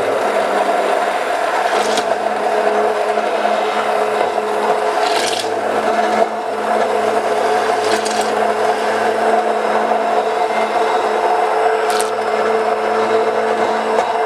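Handheld immersion blender running steadily at a constant speed, puréeing a tomato-based curry sauce in a stainless steel bowl. A few short knocks come through over the motor.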